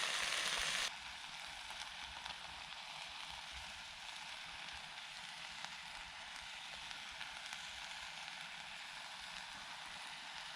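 Food frying in oil in a pan over a small wood-fired bushbox stove, a steady sizzle. About a second in it drops suddenly to a quieter sizzle with a few faint ticks.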